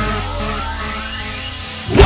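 Music: a quieter passage of held notes that slowly fades down, then comes back in loudly just before the end.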